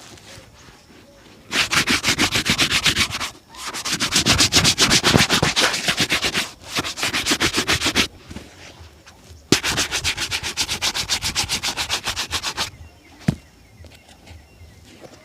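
A shoe being rubbed in fast back-and-forth strokes while it is shined, about eight strokes a second. The strokes come in four runs with short pauses between them, and there is one sharp knock near the end.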